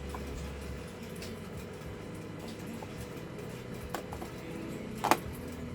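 Scattered faint clicks and taps over a steady low hum, with one sharp, louder click about five seconds in.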